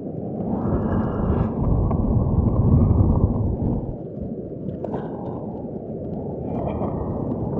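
Strong wind buffeting the microphone: a low, rumbling rush that swells to its loudest around the middle and eases off towards the end.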